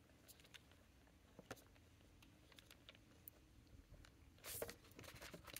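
Near silence with scattered faint light taps and a brief soft rustle about four and a half seconds in: paper and swatch cards being handled on a desk.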